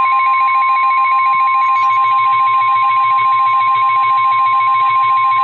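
Emergency alert warning tone: a steady, loud high tone held throughout, with a second, rapidly pulsing alarm tone chirring over it, signalling that a tornado warning message is about to be read.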